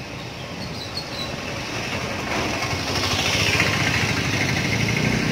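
Street traffic: a motor vehicle approaching and passing close by, getting louder from about two seconds in.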